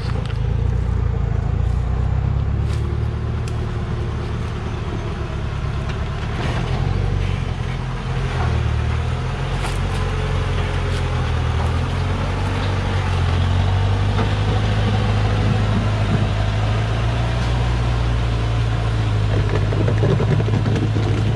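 Heavily loaded Hoa Mai logging truck's diesel engine running under load as the truck creeps through mud, its note shifting and growing stronger in the second half, with a few sharp clicks.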